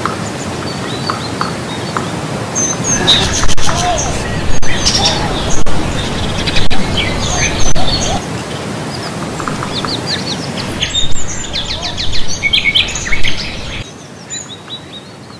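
Many small birds chirping and singing in quick short notes over a steady rushing background noise. Near the end the background drops away and the chirps thin out.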